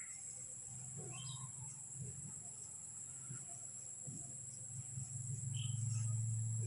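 Steady high-pitched insect buzz, typical of crickets, over a low hum that grows louder near the end, with a few faint short squeaks in between.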